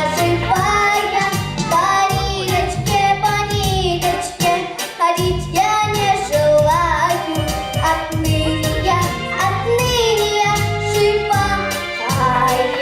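A young singer's voice singing a song over a backing track with a steady beat.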